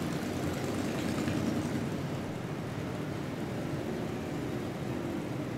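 Police cars passing close by, with a steady rumble of engines and tyres.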